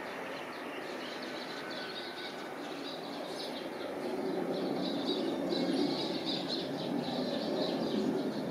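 Jet engines of an Embraer 170 airliner climbing out after takeoff, heard from the ground as a steady rumble that swells louder about halfway through. Small birds chirp over it.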